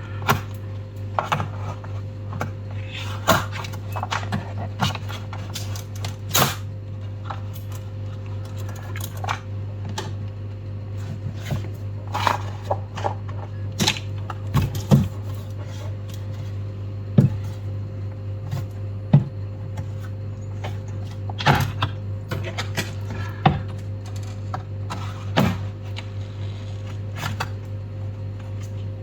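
Scattered small clicks, taps and knocks of hand tools and screws as a MacBook Pro's aluminium bottom case is unscrewed and lifted off, over a steady low hum.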